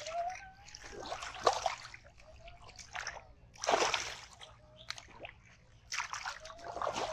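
Hands splashing in shallow muddy water as they grab at a thrashing fish, in four short bursts a second or two apart.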